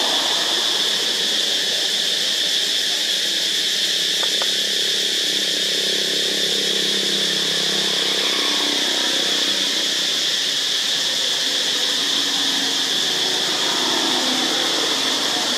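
Steady, high-pitched drone of insects calling in chorus.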